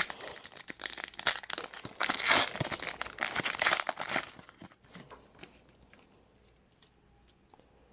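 Plastic trading-card pack wrapper being torn open and crinkled by hand, an irregular rustling that dies away about four and a half seconds in.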